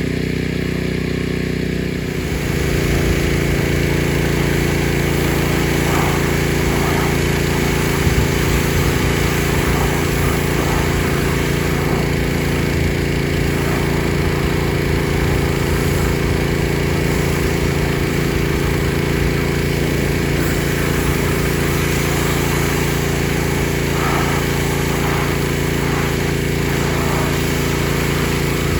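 Gas pressure washer engine running steadily and loudly. About two seconds in, its note shifts and it gets a little louder, then holds steady.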